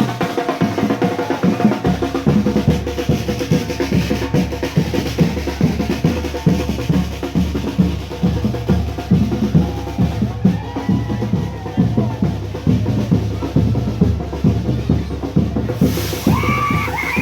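Parade marching band playing: bass drums and snare drums beat a steady, driving rhythm with snare rolls.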